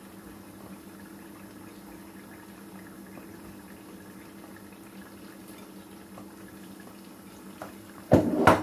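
Pot of tomato stew simmering, a faint steady bubbling with a low hum under it, as pieces of fried mackerel are laid into it. Near the end comes a short, loud clatter.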